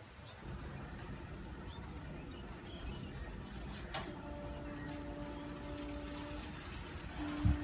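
Distant Maruti Gypsy 4x4 engine running as it drives across soft field ground: a low rumble, with a steady hum coming in about four seconds in. A few short bird chirps, and a thump near the end.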